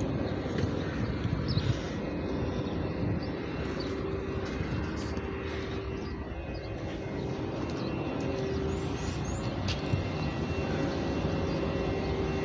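Steady engine drone with a constant low hum, even throughout with no distinct knocks or revs.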